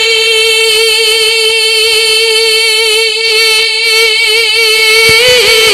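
A male naat reciter's voice holding one long, steady high note for about five seconds. It breaks into a wavering, bending ornament near the end.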